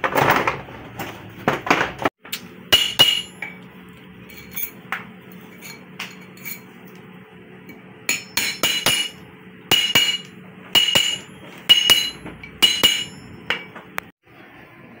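Hammer tapping a gold ring band around a steel ring mandrel to round it, giving sharp metallic clinks with a ringing tone. There are a few scattered blows, then from about eight seconds in a run of quick strikes in clusters about once a second.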